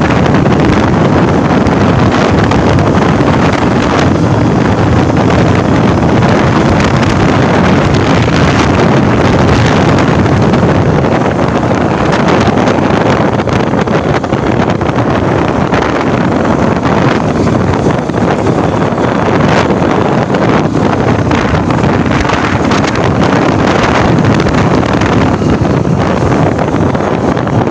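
Loud, steady wind buffeting the microphone of a motorcycle in motion, with the bike's engine running underneath.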